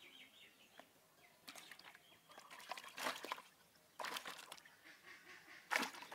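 Caught fish thrashing in a plastic bucket of water, splashing in several short bursts, the loudest near the end.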